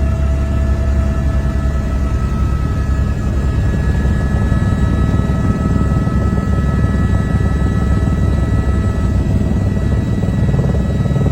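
Helicopter running in flight: a steady, loud rotor rumble with a constant high whine over it.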